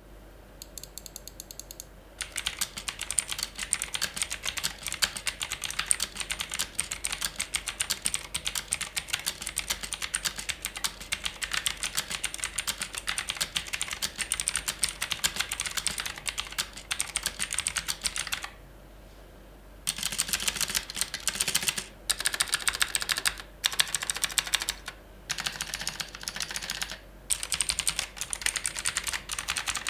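Typing on an Armaggeddon MKA-3C tenkeyless mechanical keyboard with clicky Outemu Blue switches: a fast, dense stream of key clicks. The typing is lighter for the first couple of seconds, stops for about a second a little past the middle, and has a few brief breaks after that.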